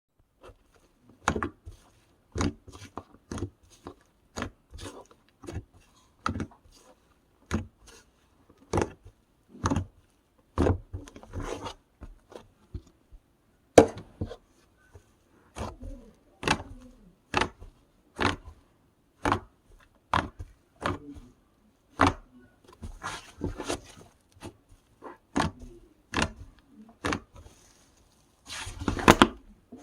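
Slime being pressed and squished by hand, making sharp sticky clicks and pops about once a second, with softer squelching in between and a burst of dense popping near the end.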